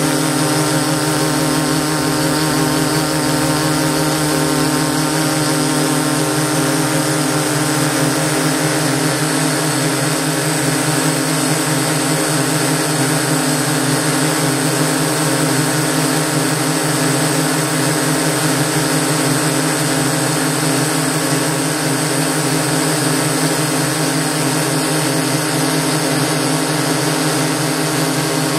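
DJI S800 hexacopter's six electric motors and propellers in flight: a steady, loud whirring hum made of several held pitches, picked up by the camera carried on the drone itself.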